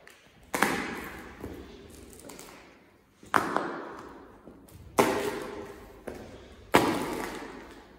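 Four slow footsteps in hard shoes, each crushing small crumbly cubes underfoot against a hard floor with a sudden crunch that fades away over about a second.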